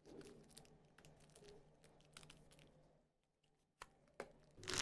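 Faint hand handling of a speaker's cardboard box and packaging: scattered soft clicks and rustles, with a sharp tick, then loud crinkling of wrapping starting near the end.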